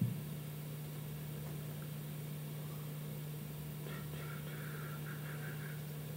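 Room tone: a steady low hum, with a short click at the very start and faint indistinct voices about four seconds in.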